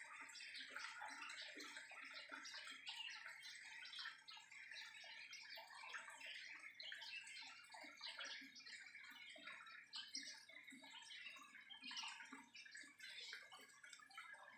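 Many small aviary birds chirping and twittering at once, a dense, faint, continuous chatter of short overlapping calls.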